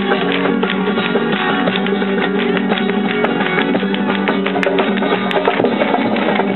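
Flamenco music: acoustic guitar strumming, with handclaps (palmas) keeping time.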